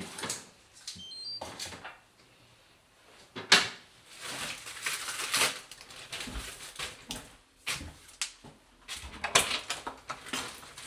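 A run of clicks, knocks and rustling handling noises in a small room, with one sharp knock about three and a half seconds in.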